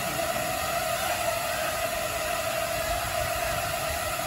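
A swarm of small quadcopter drones hovering together, their many propellers making a steady, even whir.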